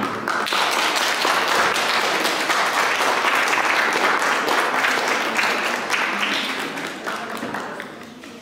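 Audience applauding: many hands clapping in a dense patter that starts suddenly and dies away over the last couple of seconds.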